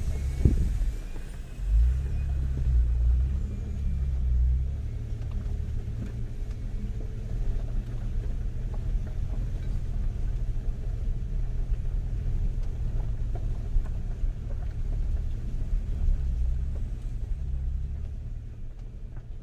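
Land Rover Discovery driving on a mountain road: a steady low rumble of engine and tyres that fades away near the end.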